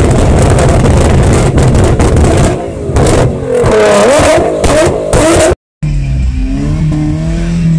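Nissan GT-R R35's twin-turbo V6 revved hard through an HKS aftermarket exhaust, crackling and banging loudly as it spits flames from the tailpipes. About two-thirds of the way through it cuts off suddenly, and a different steady pitched sound with slow rises and falls takes over.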